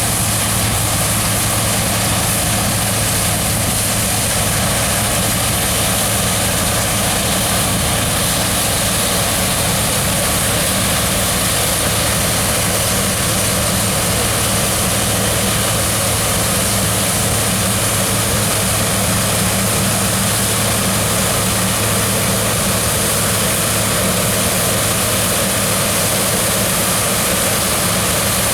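New Holland TX64 combine harvester running steadily while harvesting wheat: a constant low engine hum with an even hiss over it.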